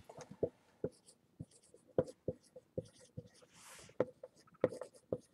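Dry-erase marker writing on a whiteboard: a string of short, faint strokes and taps as letters are drawn, with a couple of longer sweeping strokes.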